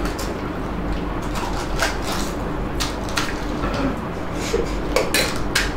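Crisp pani puri shells being cracked open and eaten by hand, heard as scattered sharp crackles and clicks over a steady background hiss, with a cluster of them near the end.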